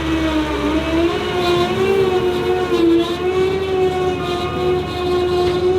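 A vehicle running with a steady pitched whine that wavers slightly in pitch.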